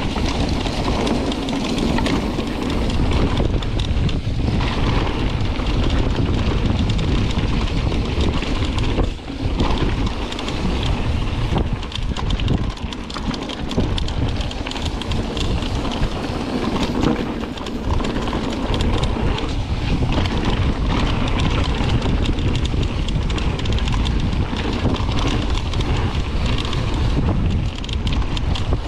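Wind rushing over an action camera's microphone as a mountain bike rides a dirt trail, with the tyres rolling over the dirt and the bike rattling over small bumps.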